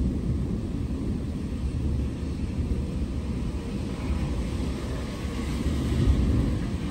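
Low, continuous rumble of distant thunder rolling, over a faint hiss of rain that grows a little louder between about four and six seconds in.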